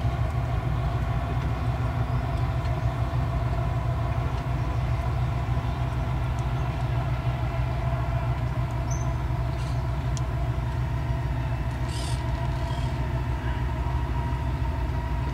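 Steady low drone of boat engines on the river, with a faint steady higher hum over it.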